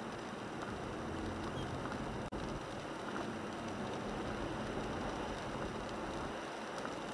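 Steady road noise heard inside the cabin of a 1998 Toyota 4Runner driving on a wet road in rain: tyre hiss on wet pavement with engine hum. The sound cuts out for an instant about two seconds in.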